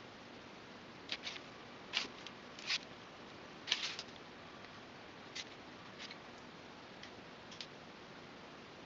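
Hobby knife blade cutting through a sheet of flattened barley straw: a string of short, irregular scratches and clicks, most of them and the loudest in the first half.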